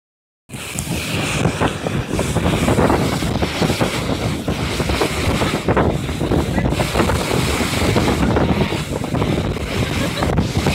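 A boat moving across a river: wind buffeting the microphone over the rush of water along the hull, in a steady loud rumble that cuts in about half a second in.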